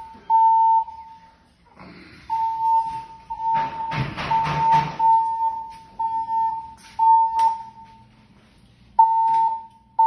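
Fire alarm voice-evacuation speaker sounding its alert tone, a steady high beep pulsing in groups of three, the temporal-three evacuation signal. A burst of clattering noise about four seconds in is the loudest moment.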